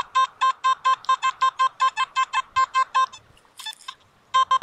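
Nokta Makro Simplex metal detector sounding a rapid string of short, identical mid-pitched beeps, about five a second, as it responds to a Buffalo nickel target. The beeps stop about three seconds in and start again near the end, with a brief faint rustle in the gap.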